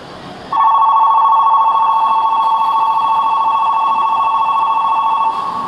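Station platform's electronic departure bell ringing for about five seconds: two close high tones warbling rapidly together. It starts about half a second in and cuts off near the end. It signals that the train is about to depart and the doors will close.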